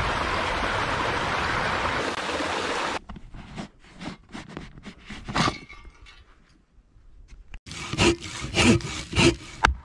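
A small creek waterfall running steadily for about three seconds, cutting off sharply; then a few light clicks and rustles; then a folding pruning saw cutting through a dead log in about four quick strokes near the end.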